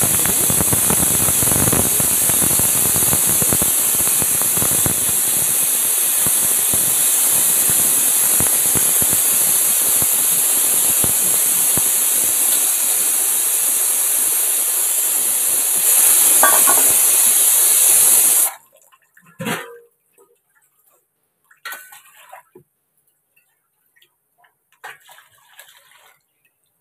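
Water running steadily from a tap, cutting off suddenly about eighteen seconds in. A few light clinks of utensils follow.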